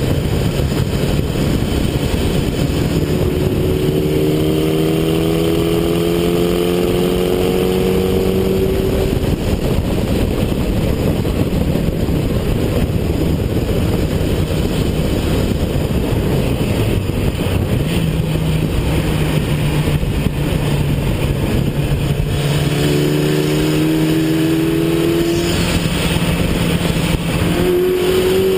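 2005 Mitsubishi Evo 8 MR's turbocharged four-cylinder engine running hard on track, on E85 fuel. Its pitch climbs under acceleration in two stretches, a few seconds in and again past twenty seconds, and holds steadier in between, all under a constant heavy rush of wind and road noise.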